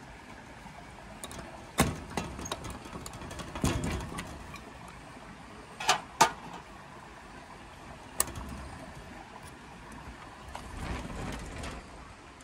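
Metal clicks and clacks of a combination padlock being worked, opened and unhooked from the iron hasp of an old wooden door. A few sharp clacks are spread over several seconds, the loudest two close together about six seconds in. Near the end comes a low, drawn-out scraping as the wooden door is opened.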